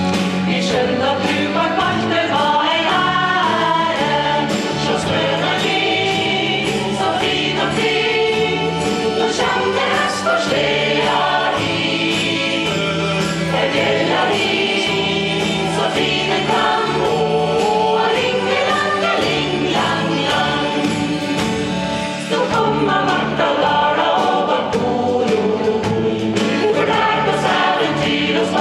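Mixed choir of adults and children singing a Norwegian Christmas song together.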